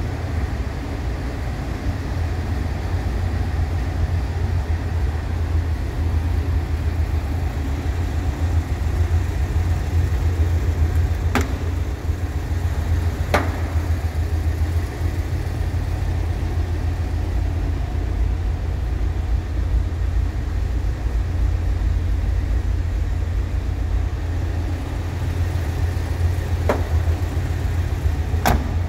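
Volkswagen Bus engine idling steadily with a low, even rumble. A few brief sharp clicks are heard partway through and near the end.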